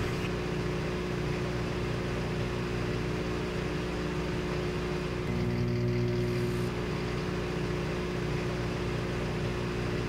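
A steady low machine hum made of several held tones, a little louder about five to seven seconds in.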